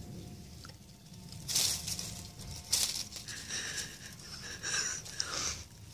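Dry leaves and a cloth heart rustling in short bursts as a jackdaw pecks and tugs at them, busier in the second half.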